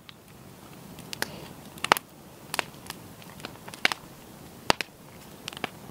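Wood campfire in a stone fire ring crackling, with sharp pops at irregular intervals of roughly a second.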